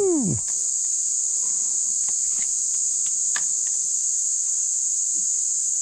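Steady high-pitched drone of a chorus of insects, unbroken throughout, with a few faint ticks in the middle.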